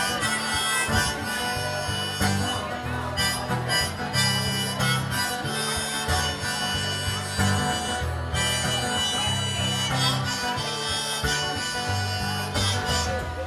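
Harmonica solo over a steady bass and guitar accompaniment: the instrumental harmonica break of a folk-rock song, between sung verses.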